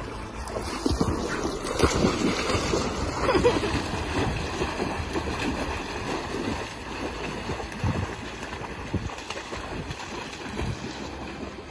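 Splashing of a person and a Siberian husky running through shallow water: a rush of irregular splashes, loudest in the first few seconds.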